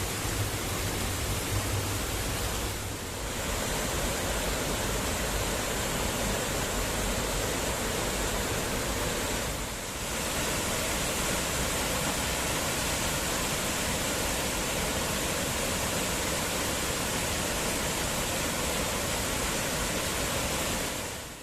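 Waterfall: a steady rush of falling water, dipping briefly twice and cutting off suddenly at the end.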